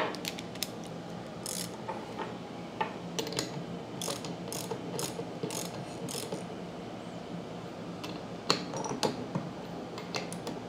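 Ratcheting wrench clicking as it is worked back and forth to snug threaded plugs into a brass pressure washer pump manifold. The clicks come in short runs with pauses, at about two a second in the middle and in another cluster near the end.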